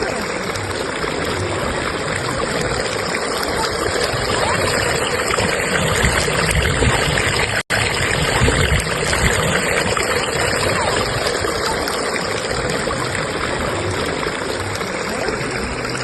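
Flowing river current rushing steadily, an even water noise. It cuts out for an instant about halfway through.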